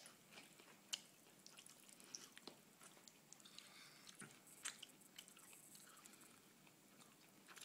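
Faint mouth sounds of a young child chewing cucumber: scattered soft clicks and smacks in a near-silent room.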